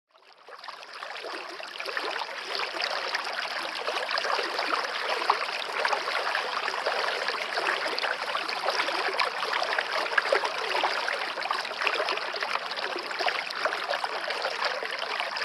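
Waterfall: a steady rush of falling water that fades in over the first two seconds.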